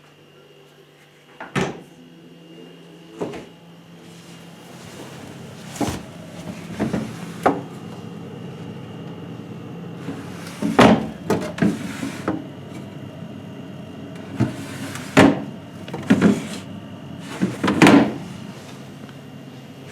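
Doors, drawers and shelves of a Candy CKBN 6180 DS fridge-freezer being handled, giving about ten separate knocks and clatters, several in quick succession in the second half, over a steady low hum.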